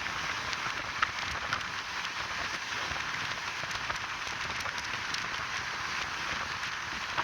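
Steady hiss of a moving train heard from inside the carriage, with faint scattered ticks over it.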